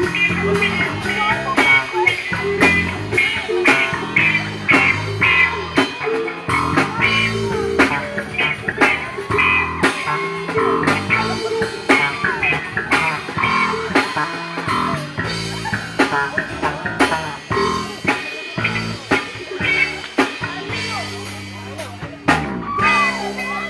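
Band playing an instrumental passage: guitar over bass and a drum kit, with a steady beat that thins out near the end.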